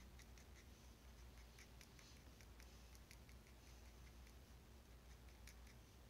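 Faint scratching of a pen on paper in short, quick strokes as hair is scribbled onto a drawing, over a low steady room hum.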